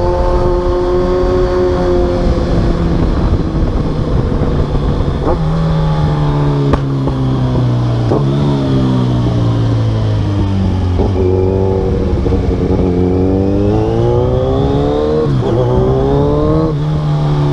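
Kawasaki Z1000 inline-four engine through an aftermarket full exhaust system, with the bike under way. The engine note sinks as it slows, with a few sudden jumps in pitch, then climbs steadily under acceleration and drops sharply at a gear change about fifteen seconds in before climbing again.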